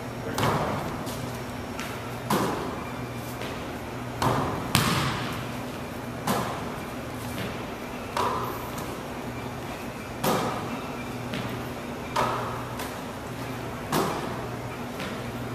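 Basketball hitting the hardwood gym floor, backboard and rim during a shooting drill: a sharp, echoing bang about every two seconds, over a steady low hum.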